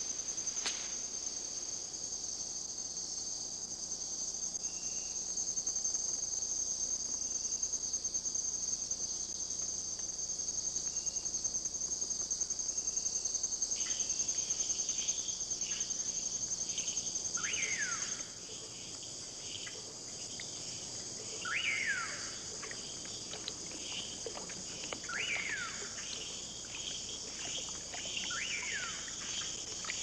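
Tropical night insect chorus: a steady, high, continuous trilling. About halfway through, short chirps start up and a falling call sounds four times a few seconds apart, and the loudest trill stops soon after.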